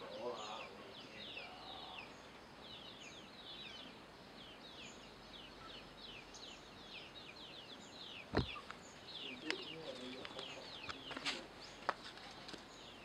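Small birds chirping steadily in the background, a rapid run of short falling chirps several times a second. A few sharp knocks stand out, one about eight seconds in and another about eleven seconds in.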